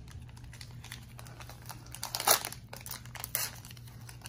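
Foil booster-pack wrapper crinkling as the cards are pulled out of the opened pack, with a louder crackle a little past two seconds in and another about a second later.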